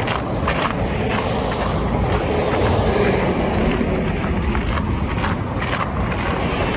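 A vehicle passing close by: a low rushing rumble that swells about halfway through, then eases off.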